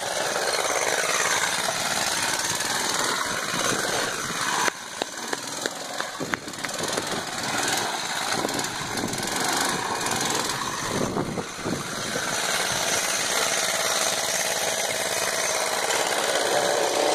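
Small petrol engine of a Red Fox LXT go-kart running as the kart is driven, with a dip and a run of sharp pops about five to seven seconds in.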